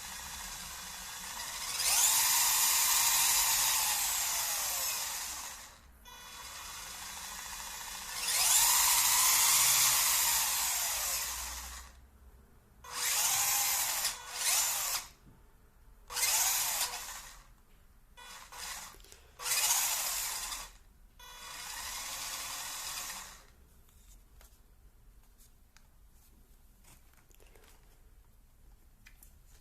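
Small electric motor and gearbox of a 1/18-scale 4x4 RC car whining in bursts as the throttle is applied and released, the pitch rising and falling with each burst. There are two longer runs of a few seconds each, then several short blips, and it goes quiet for the last few seconds.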